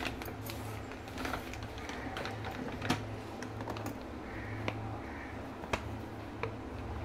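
Plastic pouch of milk powder crinkling and crackling in the hand as powder is tipped out of it into a steel tumbler, with a few sharp clicks scattered through. A low steady hum runs underneath.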